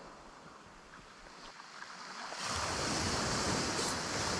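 Wind blowing across the microphone and surf washing on the shore, an even rushing noise that swells about two and a half seconds in after a quieter start.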